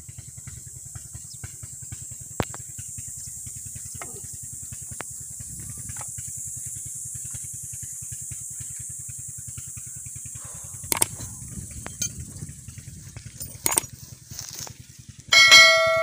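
A steady low engine thudding at an even rhythm with a constant high hiss over it. Occasional sharp clinks of metal tools, and near the end one loud ringing metallic clang.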